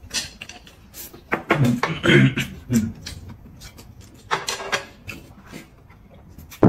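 Close-up eating sounds: noodles slurped and chewed, and drinks sucked through plastic straws, in short separate bursts with pauses between.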